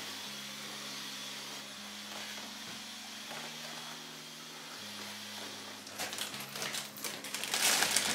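Steady hiss under soft, low sustained notes that change every second or so; about six seconds in, rough rubbing noises start in quick bursts, loudest near the end, like scrubbing or wiping during cleaning.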